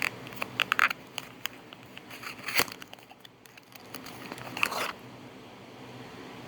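Small boxes and nail polish bottles being handled: scattered clicks, taps and crinkling rustles, in three brief clusters.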